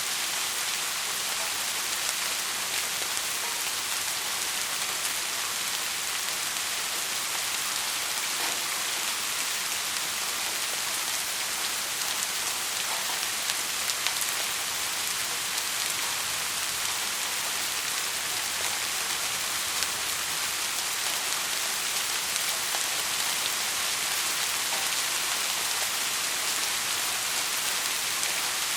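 Heavy rain falling steadily, an even hiss sprinkled with the ticks of individual drops.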